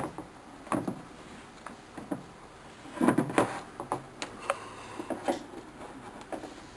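Scattered light clicks and knocks of objects being handled, with a small cluster of them about three seconds in.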